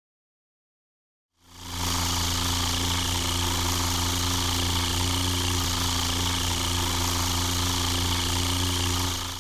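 Silence, then about a second and a half in a steady aircraft engine drone fades in, with a strong low hum and a hiss above it, starting to fade out at the very end.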